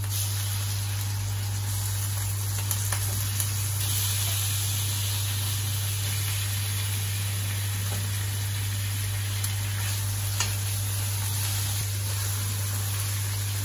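Raw chicken pieces sizzling steadily as they fry in hot oil with onions in a wok, stirred with a wooden spoon that gives a few light taps. A steady low hum runs underneath.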